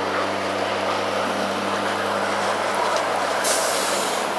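Ride-on miniature railway train running close by: a steady rush of running and wheel noise, with a short burst of hiss about three and a half seconds in.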